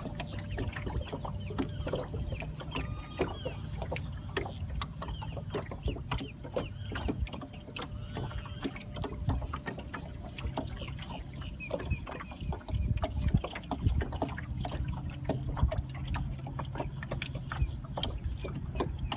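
Small electric trolling motor pushing a boat along slowly, with a low steady hum and a faint steady whine, over many small knocks and splashes of water against the hull.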